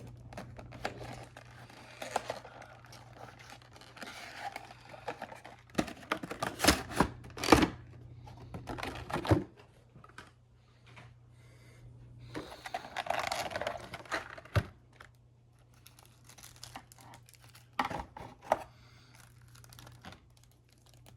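Cardboard box of a diecast airliner model being opened by hand: the packaging rustling, crinkling and tearing in spells, with a cluster of sharp knocks and clacks in the middle, the loudest sounds, and a few more knocks near the end.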